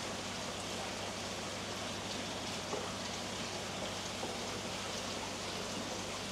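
Steady hiss of splashing, running water with a low, even hum underneath.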